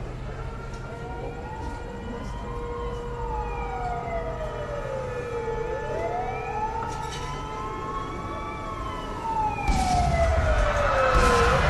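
Air-raid siren wailing, its pitch slowly rising and falling about every six seconds, over a low rumble. About ten seconds in, a louder rumbling noise with hiss joins it.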